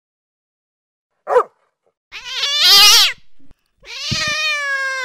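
A pet animal's cries: a short yelp, then a loud wavering cry that rises and falls, then a long drawn-out wail, with a brief low thud under it.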